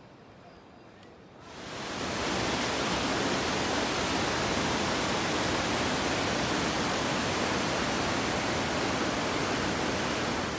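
Mountain river running hard over boulders in white-water rapids, a loud steady rush that starts about a second and a half in.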